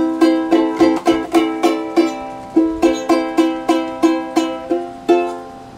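Ukulele chords strummed in a steady rhythm, about three strokes a second, with the last chord left ringing and fading near the end.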